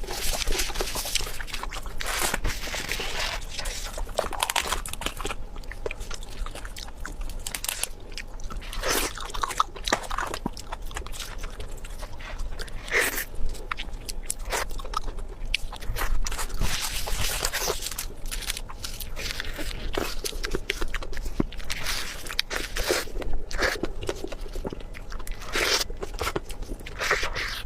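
Close-up eating sounds: a person biting and chewing food, with irregular crisp crunches and wet mouth clicks throughout.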